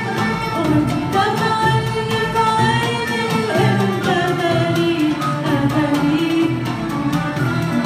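A woman singing an Arabic song live with an Arabic orchestra of bowed strings, plucked instruments and hand drums, in long, ornamented vocal lines.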